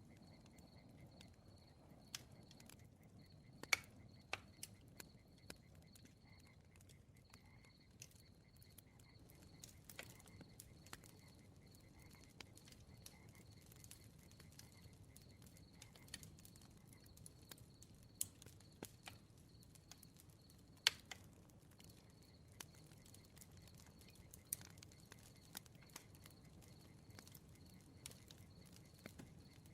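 Crackling bonfire: a low, soft rumble of burning with scattered sharp pops and snaps, two of them louder, about four seconds in and about two-thirds of the way through. A faint, evenly pulsing high chirp runs behind it.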